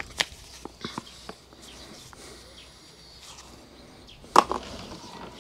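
Thin plastic nursery pot crinkling and clicking in gloved hands as it is squeezed and a young fig's root ball is worked out of it, with a louder crackle near the end.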